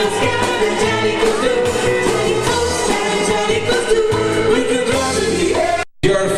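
Stage-show music with singing and a steady beat. The sound cuts out abruptly for a moment near the end, then the music with singing comes back.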